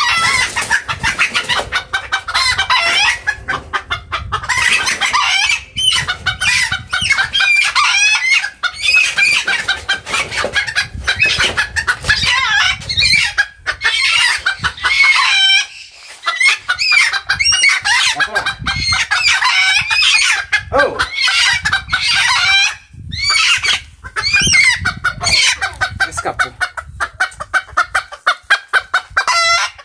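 Chickens clucking and calling continuously at close range, with a few short lulls.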